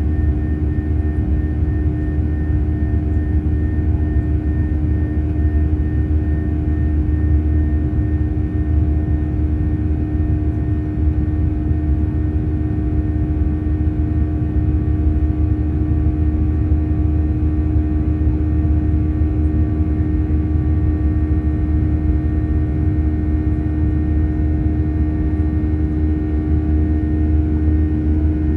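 Steady jet engine and airflow noise inside an airliner's passenger cabin during the climb after takeoff. It is a constant deep rumble with a steady hum and a few fixed higher tones over it.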